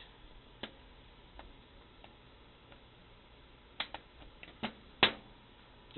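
Light metallic clicks of needle-nose pliers working a roller-chain master link's spring clip, a few scattered at first and then several in quick succession. The loudest is a single sharp snap about five seconds in as the clip is pushed home over the link pins.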